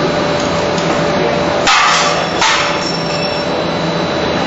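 Steady running noise of a plastic film blowing and gravure printing line, with a constant hum. A little under two seconds in, two sharp knocks come about 0.7 s apart.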